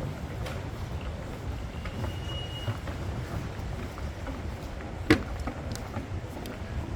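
City street ambience: a steady low rumble of traffic, a brief high steady tone about two seconds in, and a single sharp knock about five seconds in, the loudest sound.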